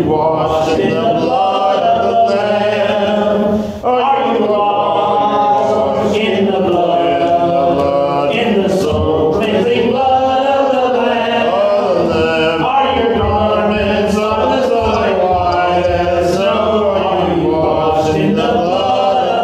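Congregation singing a hymn together, with a man's voice among them, the singing breaking briefly for a breath about four seconds in.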